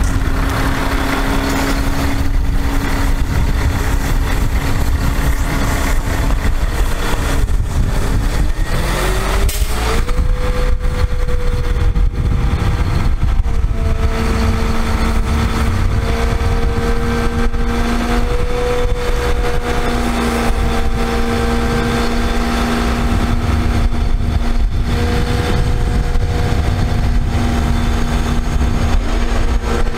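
Bucket truck's engine running, driving the hydraulics that raise the Altec AA755L boom. A little under a third of the way in, its pitch rises smoothly over about two seconds to a higher, steady speed, held with a slight waver over a deep rumble.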